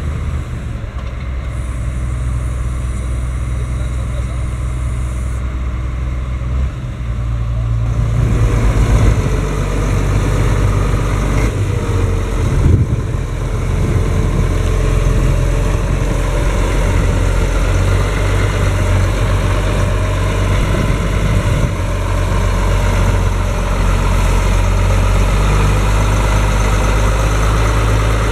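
Schlüter Super Trac 2200 TVL-LS tractor's six-cylinder Liebherr diesel engine running steadily, markedly louder from about eight seconds in.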